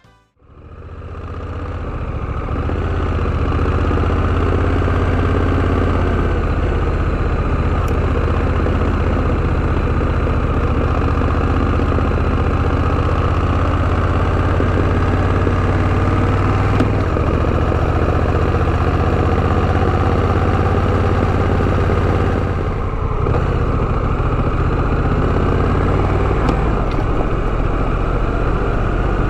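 Honda Rebel 1100's parallel-twin engine running at a steady speed. It fades in over the first couple of seconds and is briefly quieter about 23 seconds in.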